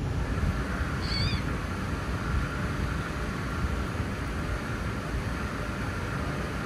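A short wavering animal cry about a second in, over a steady low rumble.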